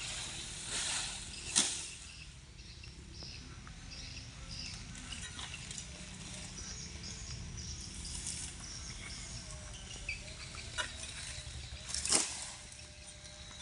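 A few sharp cracks from oil palm harvesting with a long-poled sickle, the loudest about one and a half seconds in and two more near the end, over faint steady chirping and a low rumble.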